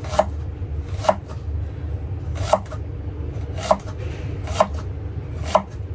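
Knife chopping vegetables on a cutting board: six separate strikes at uneven spacing, roughly one a second.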